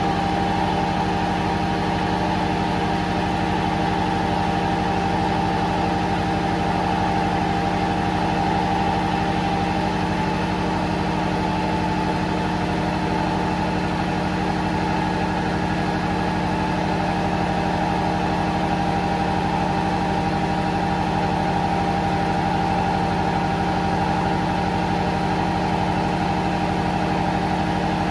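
Engine-room machinery running steadily: a constant engine drone with several steady humming tones that never change in speed. The engine being repaired is not the source; its gearbox oil cooler is off and in the men's hands.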